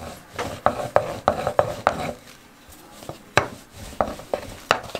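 Wooden rolling pin rolling out a ball of yeast dough on a wood-grain worktop: rubbing strokes broken by sharp knocks, about three a second for the first two seconds, then a few scattered knocks near the end.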